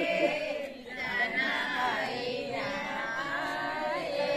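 A voice singing a Hindi film song without instruments, holding long, slightly wavering notes.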